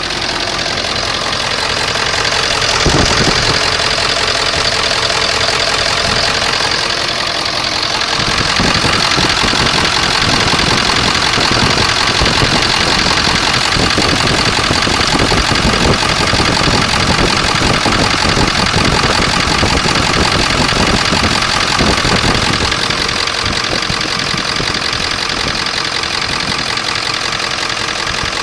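Ford 7.3L Power Stroke V8 turbo-diesel idling roughly with loud injector clatter, louder and more uneven through the middle stretch. It has an injector-pressure fault code and starts hard, which the owner takes for a failing high-pressure oil pump.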